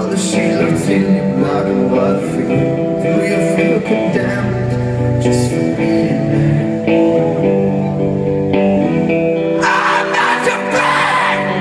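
Live rock band: electric guitars, drums and a singer. Cymbal crashes come in several times and are heaviest near the end.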